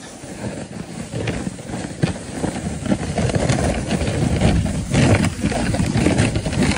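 A sled sliding down a packed-snow trail: a steady scraping rumble of the sled over the snow with frequent small knocks from bumps, growing louder as it picks up speed.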